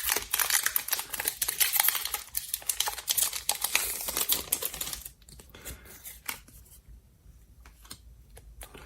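Foil booster-pack wrapper crinkling and trading cards being handled, a dense rustling for about five seconds that thins to scattered soft clicks.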